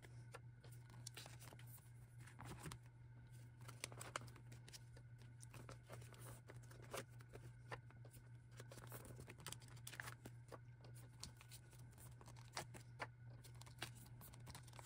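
Faint rustling and crinkling of plastic binder sleeves as photocards are handled and slid into the pockets, with scattered small clicks and scrapes, over a low steady hum.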